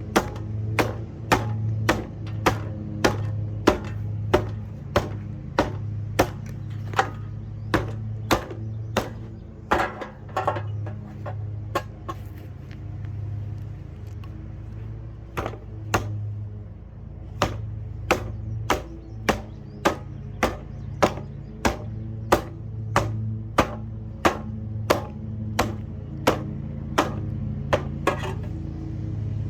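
A Lasko box fan running with a steady low hum, over which a sharp knock repeats about twice a second, stopping for a few seconds midway and then resuming.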